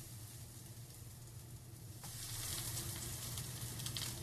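Blackening-seasoned black drum fillets sizzling as they are laid into a hot nonstick frying pan. The sizzle grows louder about halfway through as another fillet goes in.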